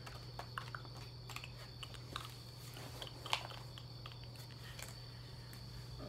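Rummaging: scattered light clicks, taps and rustles of small objects being moved by hand while searching for a pen, with one sharper click a little past halfway. A steady low hum runs underneath.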